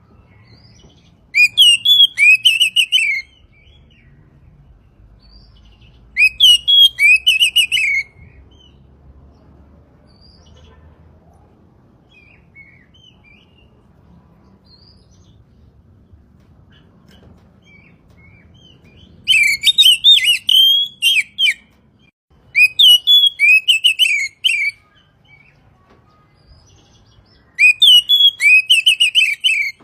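Oriental magpie-robin (kacer) singing in five separate phrases of about two seconds each, with quiet gaps between them. Each phrase is a fast run of repeated, sweeping whistled notes.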